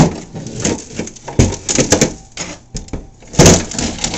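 Handling noise from the plastic hull of an RC catamaran: a series of knocks, clatters and rubbing as it is moved about and set down on the work surface, the loudest knock about three and a half seconds in.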